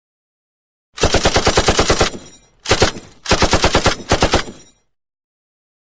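Automatic gunfire sound effect: three bursts of rapid shots at about ten a second. There is a burst of about a second, a short burst, then a longer one.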